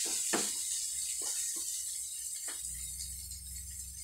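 Vegetables sizzling in a nonstick frying pan, with a wooden spatula knocking and scraping against the pan four times in the first two and a half seconds as they are stirred. A low steady hum starts after the stirring stops.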